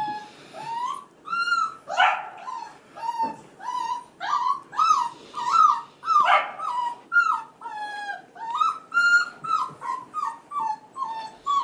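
F1b Goldendoodle puppies, five and a half weeks old, crying: a string of short, high whines, about two a second, each bending up or down in pitch.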